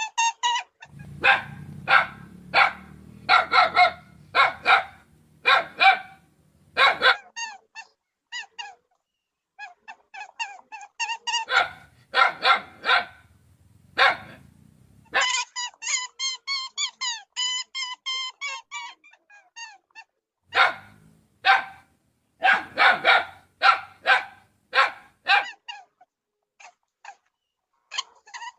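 A dog barking repeatedly in groups of short sharp barks, with stretches of rapid high chirping calls between them.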